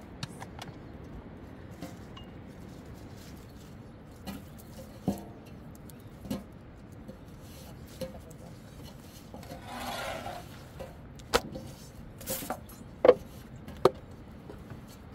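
Scattered sharp knocks and clicks of things being handled, with a short rubbing rustle about ten seconds in; the sharpest knocks come in the last few seconds.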